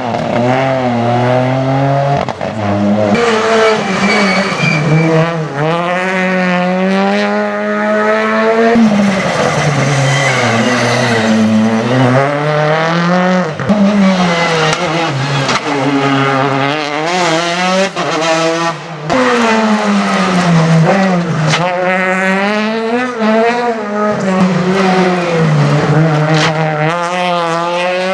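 Rally car engines revving hard, their pitch climbing and dropping again and again through gear changes and lifts of the throttle.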